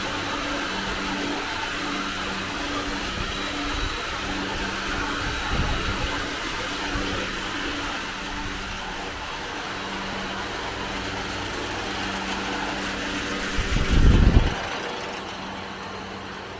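Steady workshop background noise with a low mechanical hum that comes and goes, broken near the end by one loud dull thump.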